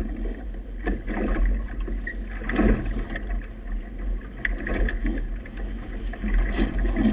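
Wind buffeting a small camera microphone over choppy river water, with waves slapping and sloshing against a boat's hull in surges about every two seconds.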